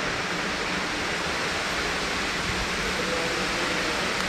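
Steady rushing hiss of flowing water from an indoor aquarium pool and its cascade.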